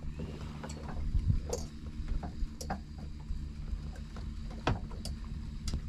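Boat engine's steady low hum, with scattered sharp clicks over it.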